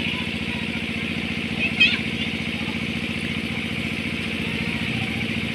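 Diesel engine running steadily at an even, pulsing idle, with a short high chirp about two seconds in.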